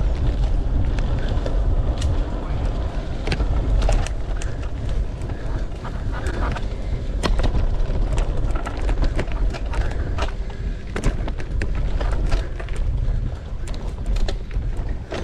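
Mountain bike riding over a rough dirt trail: wind rumbling on the microphone, with tyre noise and frequent sharp rattles and clicks from the bike.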